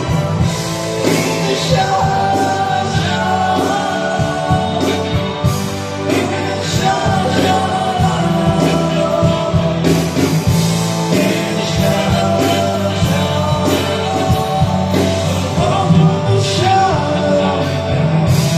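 Live band playing loud amplified music with electric guitar and drums, while a woman and a man sing into microphones through the PA.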